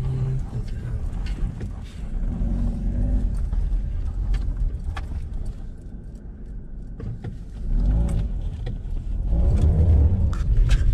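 Car rolling slowly over a gravel parking lot, heard from inside the cabin: a low engine and tyre rumble with scattered clicks of gravel under the tyres, louder near the end.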